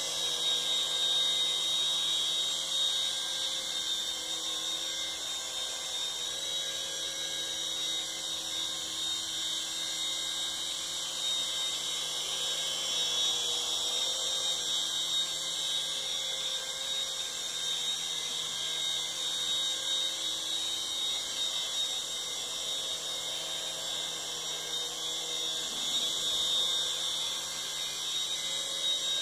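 Toy remote-control helicopter hovering, its small electric motors and rotor giving a steady high-pitched whine.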